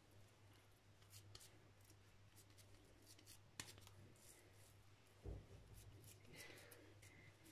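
Near silence, with faint rubbing and light ticks of hands squeezing, rolling and pressing raw minced-meat köfte mixture into a patty. A sharp click comes about three and a half seconds in, and a soft thump a couple of seconds later.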